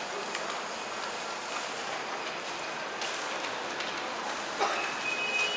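Steady outdoor city noise, a wash of distant traffic and ambient hum. A brief knock comes just before the end, along with a thin high-pitched tone.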